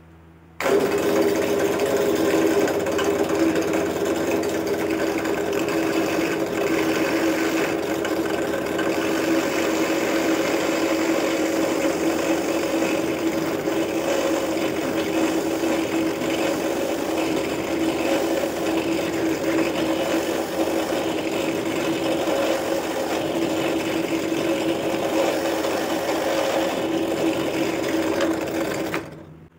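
Small benchtop drill press switched on about half a second in, its motor running with a steady hum while a twist bit drills into the end grain of a small wooden block. It is switched off just before the end.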